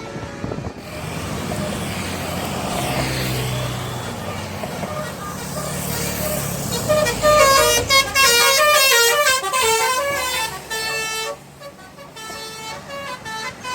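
A bus drawing near with its engine rumble growing, then sounding a telolet horn: a loud multi-tone horn playing a quick run of changing notes for about four seconds, cutting off a little past the middle.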